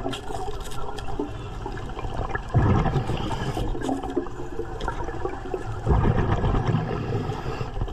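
Underwater bubbling and rushing of a hookah diver's exhaled air, swelling about two and a half seconds in and again near six seconds.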